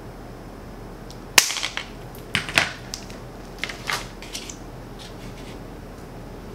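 Cutters snipping a short piece of quarter-inch flexible plastic tubing, one sharp snap about a second and a half in. A few lighter clicks and taps follow as the tool and the cut tubing are put down on the table.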